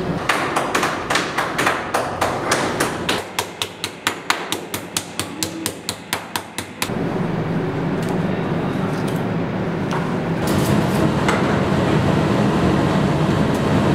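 A meat mallet pounding meat flattened under plastic wrap on a stone counter, quick even blows at about four or five a second. The blows stop about halfway through, leaving a steady background noise.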